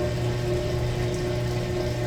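Maytag Bravos MCT top-load washer running: a steady motor hum with the sound of water in the tub.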